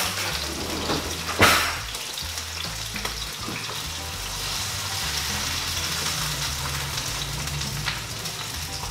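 Thin seasoned steak sizzling steadily in hot oil in a frying pan, with one short, louder clatter about a second and a half in.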